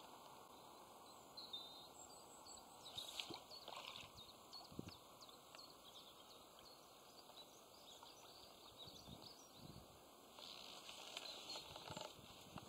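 Near silence: quiet outdoor ambience with a few faint, scattered bird chirps, ending in one sharp knock.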